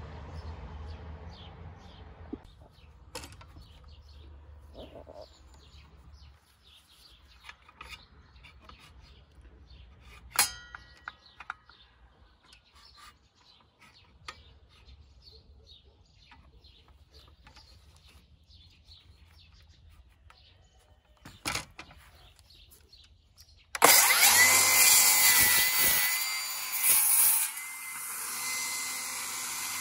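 Scattered clicks and knocks as a cordless circular saw is handled. About 24 seconds in, the Milwaukee M18 FUEL circular saw's brushless motor starts suddenly with a loud, steady whine, and its blade cuts into a weathered pallet board.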